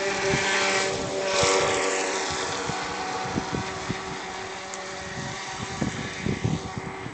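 Traxxas Blast radio-controlled boat's electric motor whining steadily at speed, with the spray of its hull on the water. It is loudest about a second and a half in as it passes close, and its whine falls in pitch as it moves away.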